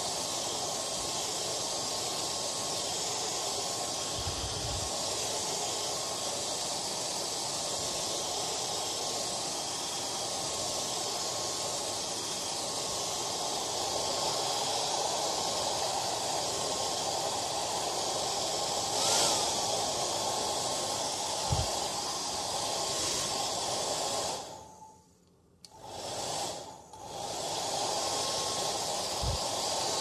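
Hair dryer blowing: a steady rush of air with a faint motor whine. About 24 seconds in it fades away almost to nothing, swells back within a couple of seconds, and dips once more briefly just after.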